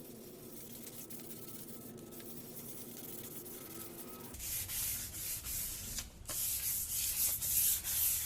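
Wet sandpaper (400 grit) rubbed by hand over a plastic headlight lens. The rhythmic back-and-forth scrubbing strokes start about four seconds in, at roughly two strokes a second.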